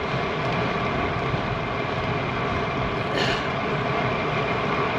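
Steady wind rush and tyre noise on a road bicycle's camera microphone while riding, with a faint steady whine under it and a short hiss about three seconds in.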